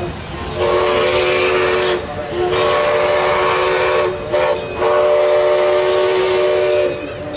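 A chime steam whistle blown four times: two blasts of about a second and a half, a short toot, then a longer blast of about two seconds. Each blast is a steady chord of several notes with a breathy hiss.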